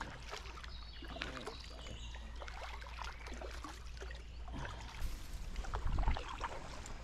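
Kayak paddle strokes: the blade dipping into the water with small splashes, trickles of dripping water and light knocks against the paddle shaft, over a steady low rumble. The splashing gets heavier towards the end.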